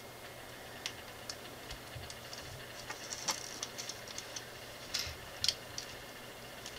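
Small plastic LEGO pieces clicking and tapping now and then as they are picked up and pressed together, with two sharper clicks about five seconds in.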